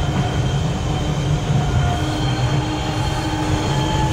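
New York City Subway train running through a tunnel, heard from inside the car at the front window: a steady rumble of wheels on rail with a thin whine held at a few steady pitches above it.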